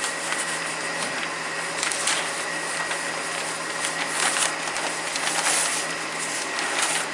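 Large paper shooting target rustling and crinkling in bursts as it is unfolded and handled, over a steady background hiss with a faint hum.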